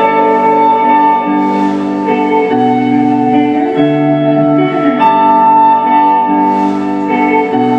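Slow, pretty ambient music on electric guitar through a delay effect: layered, overlapping sustained notes, with the low notes changing every second or two.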